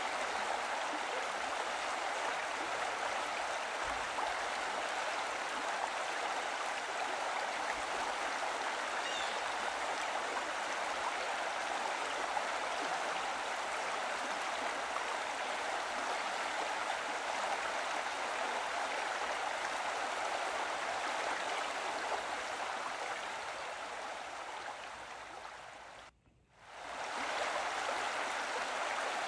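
Steady running water, like a flowing stream. It fades down about three-quarters of the way through, cuts out for a moment, then rises back to the same steady level.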